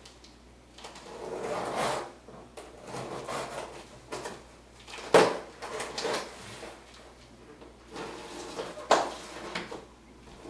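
Hands opening a cardboard shipping box: irregular rustling and scraping of cardboard flaps and packing tape, with two sharp, louder sounds about five and nine seconds in.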